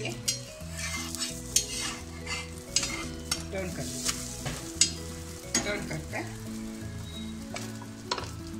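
Egg omelette sizzling in oil on an iron tawa, with a spatula scraping and clicking against the pan as it is turned over about four seconds in.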